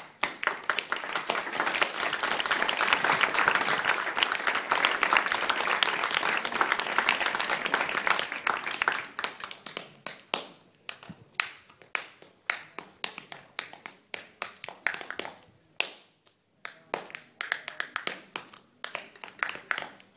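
A dancer's hard-soled shoes striking the floor in fast rhythmic footwork, with no music. From about one to nine seconds in the strikes run together into a dense, continuous clatter, then break into separate quick groups of taps.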